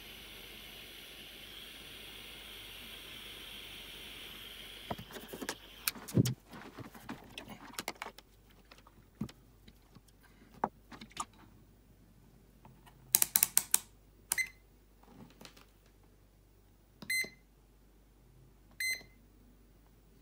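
Butane soldering iron hissing steadily, cutting off about five seconds in. Then handling clicks and knocks, and a digital multimeter beeping three short times near the end.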